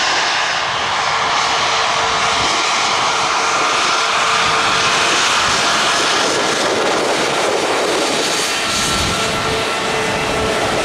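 Jet airliner's engines running loud and steady, a dense roar with a few faint steady tones in it, starting suddenly.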